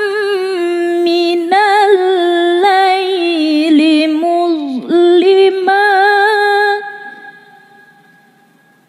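A woman's voice reciting the Quran in melodic tilawah style, holding long ornamented notes with quick wavering turns. The phrase ends about seven seconds in, and a trailing echo fades away after it.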